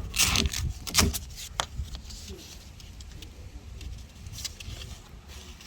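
A fingernail scratching clogged residue off a sanding disc: a few short scratching strokes in the first second and a half, then faint handling noise over a low rumble.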